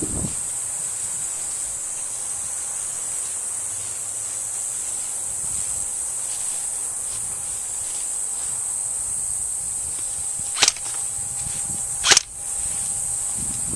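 Steady high-pitched buzz of insects, with two sharp airsoft gun shots about a second and a half apart near the end.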